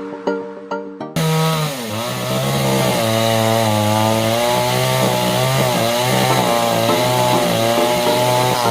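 Plucked-string background music for about a second, then an abrupt cut to a chainsaw running at high revs. Its engine pitch dips and recovers repeatedly as it is loaded in the cut.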